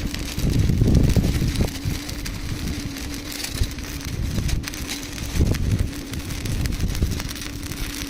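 Electric welding arc crackling and hissing steadily while a square pipe is butt-welded, with a steady hum underneath and a few low rumbles.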